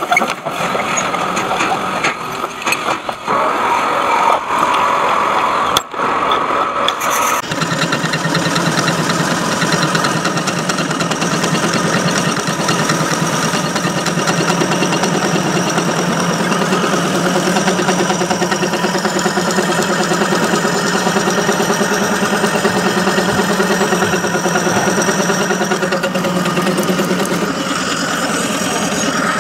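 Metal lathe running with its spindle turning a workpiece while a boring tool cuts inside the bore. It is uneven for the first seven seconds or so, then settles into a steady machine hum.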